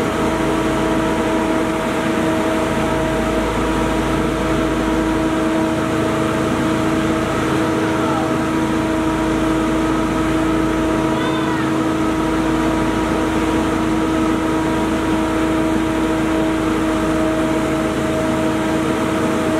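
Steady machinery hum with a constant pitched drone over a rushing noise.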